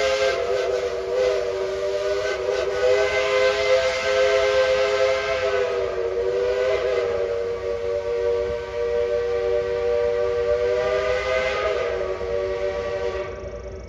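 Dollywood Express steam locomotive blowing a long, sustained chime whistle, several notes sounding together over a hiss of steam, wavering slightly in pitch and fading out near the end.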